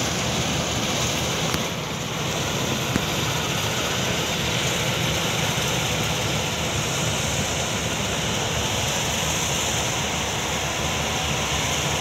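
Combine harvester running steadily at work, its engine and machinery making an even, unbroken drone.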